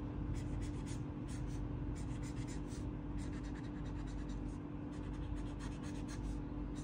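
Acrylic paint marker tip rubbing across paper in quick, repeated colouring strokes, with a steady low hum underneath.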